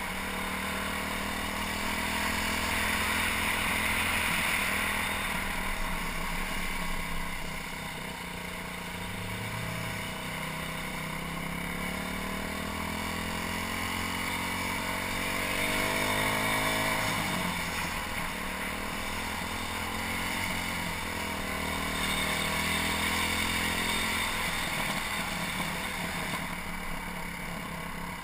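Small single-cylinder motorcycle engine (BaltMotors Motard 200) running under way, its revs rising and falling, with a long climb in pitch past the middle that drops off sharply, over steady wind noise on the camera microphone. The engine is one the owner says has developed an occasional tick of unknown origin and surging, stumbling revs since a tank of dubious fuel.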